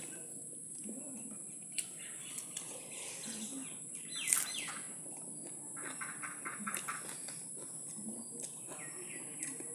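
Birds chirping intermittently, including a fast trill about six seconds in and the loudest call about four seconds in, over a steady high-pitched hiss, with a few sharp clicks.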